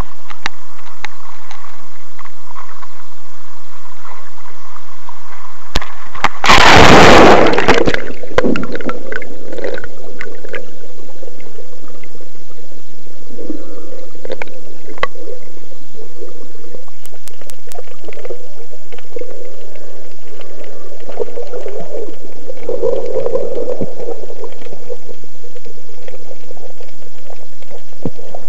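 A loud splash about six seconds in as the camera goes into the sea, followed by underwater bubbling and gurgling with scattered small clicks, heard from the camera's microphone below the surface.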